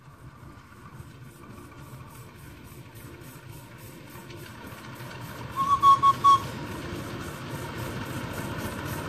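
Ridable miniature railway locomotive running as it approaches, its engine getting steadily louder. About halfway through it gives four short, loud toots on its whistle.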